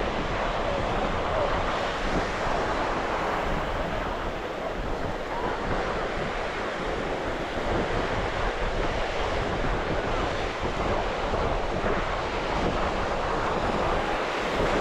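Ocean surf breaking steadily on the beach, with wind buffeting the microphone.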